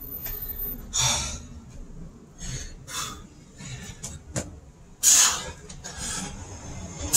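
A man breathing hard during burpees with push-ups, in sharp exhalations every second or so, the loudest about five seconds in. Wind rumbles on the microphone underneath.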